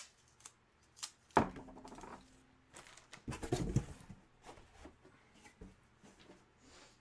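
Handling noises of memorabilia and packaging being moved on a table: scattered clicks and light knocks with rustling, the loudest knock about a second and a half in and a busier cluster of knocks and rustle around the middle.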